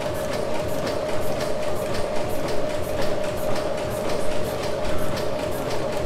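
1904 Sulzer tandem-compound steam engine running steadily, its valve gear and motion giving a regular, even clicking over a steady hum.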